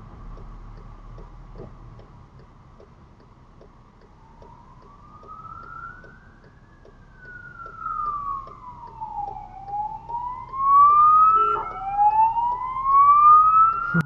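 Police car siren wailing as it approaches, its pitch sweeping slowly up and down and growing much louder from about halfway in, with an abrupt jump in the sweep a couple of seconds before the end. A steady light ticking, about three a second, runs underneath.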